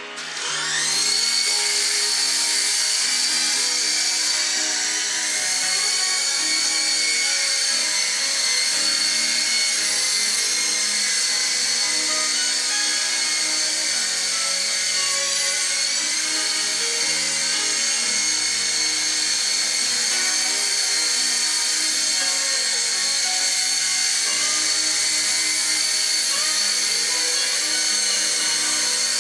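High-pitched electric whine of a SYMA S032 radio-controlled helicopter's motors and rotors, rising as they spin up about a second in and then holding steady, with a slight waver. Music with changing bass notes plays underneath.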